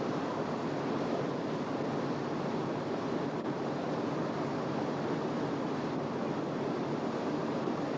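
Steady rushing noise of wind and water aboard a motor ship.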